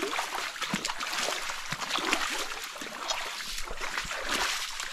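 Shallow rocky stream trickling and splashing, with scattered small knocks and clicks of stones shifted in the water.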